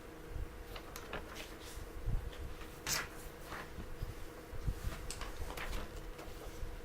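Faint room noise with a low steady hum and scattered small clicks and knocks, the sharpest click about three seconds in.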